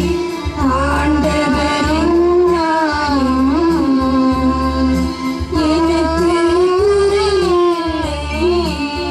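A hymn sung by a single voice in long held notes that bend and waver, over a steady low instrumental accompaniment, with a short break between phrases about five and a half seconds in.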